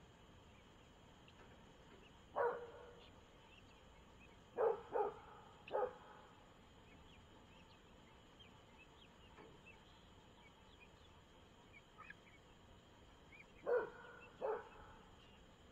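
A dog barking: one bark, then three close together, then two near the end, over a steady high trill of night insects.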